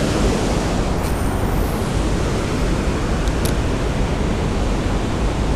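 Steady rush of flowing river water, an even noise with no let-up, with a couple of faint ticks a little past the middle.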